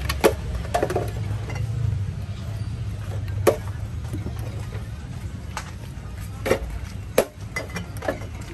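Glass drink bottles clinking and knocking as they are handled and set down on a vendor's cart, a dozen or so scattered sharp clicks, over a steady low background rumble.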